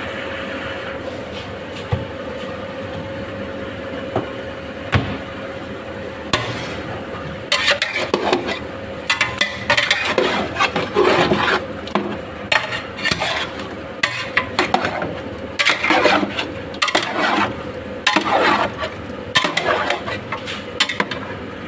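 Chicken being mixed with its marinade in a metal pot: irregular scraping and clattering that starts about seven seconds in, over a steady background hum.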